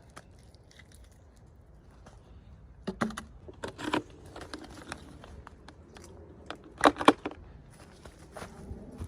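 Small plastic toy packaging being handled and opened: scattered clicks and taps with some crinkling, in two busier clusters, the loudest about seven seconds in.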